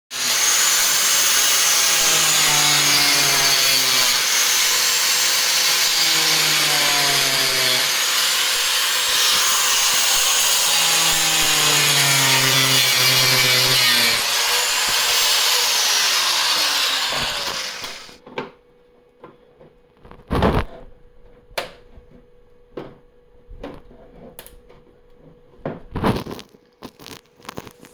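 Handheld power tool cutting plastic headlight housing with a harsh, loud noise, its pitch sagging and recovering a few times under load; it stops about 18 seconds in. Then come scattered sharp clicks and knocks of parts being handled.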